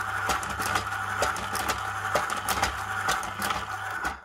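ZCUT-2 automatic carousel tape dispenser running: a steady motor hum with a sharp click about two to three times a second as it cuts each piece of tape and indexes the carousel. It stops suddenly at the end.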